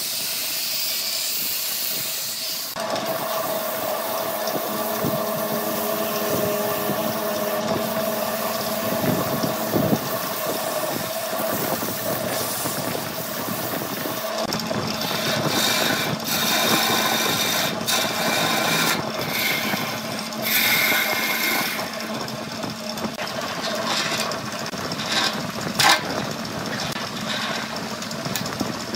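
Wood lathe spinning a large workpiece. For the first few seconds an angle grinder with a sanding disc hisses against the wood. When it stops, the lathe's steady hum remains under the irregular scraping and chatter of a hand-held turning tool cutting the end face. Near the end a Forstner bit bores into the spinning end.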